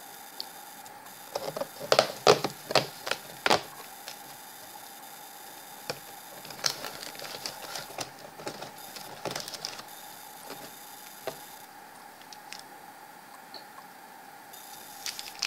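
A cardboard advent-calendar door being picked and pulled open by hand, with a quick series of sharp clicks and scrapes in the first few seconds. Lighter rustling follows as a card in a plastic sleeve is drawn out of the door.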